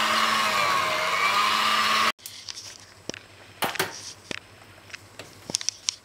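Electric hand mixer running in thick fruitcake batter, its motor note sagging and recovering, then switched off suddenly about two seconds in. A few sharp clicks and knocks follow.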